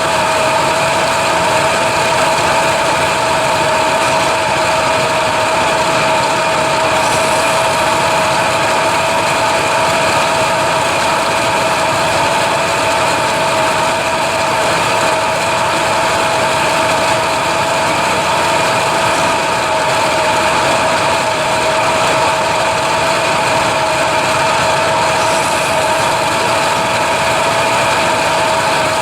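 Steady mechanical running noise, like an engine or motor, with constant whining tones over a hiss and no change in speed.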